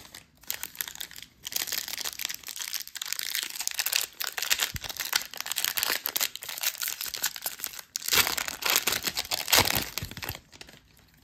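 Foil trading-card pack wrapper being torn open and crinkled by hand, a dense crackling with a short pause about eight seconds in.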